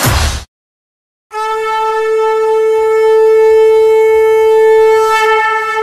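A firework fountain's hiss cuts off abruptly in the first half second; after a brief silence a conch shell (shankha) is blown in one long, steady note of about four seconds, opening a devotional track.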